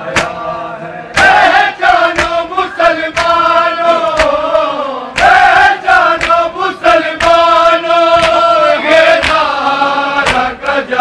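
Shia mourners chanting a noha, a mourning lament, in long held lines, with sharp hand slaps on bare chests (matam) landing about every half second to second.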